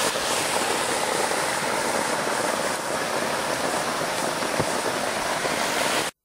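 Waterfall rushing, a steady even noise that cuts off abruptly about six seconds in.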